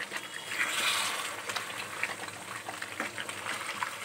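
Chicken pieces in a thick, bubbling curry gravy being stirred with a flat spatula in a metal pan, the sauce sizzling as it is turned, with small scrapes and knocks of the spatula against the pan. A louder sizzling swell about a second in.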